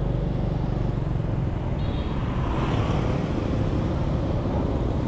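Motorbike engine running steadily with street traffic noise.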